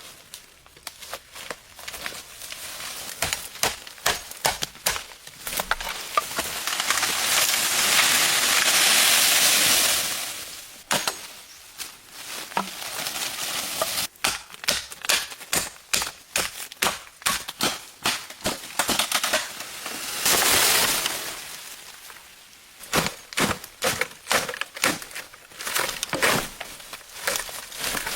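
Bamboo being chopped and split with a blade: runs of rapid, sharp knocks and cracks. They are broken by two stretches of steady rasping noise, a long one about six seconds in and a shorter one about twenty seconds in.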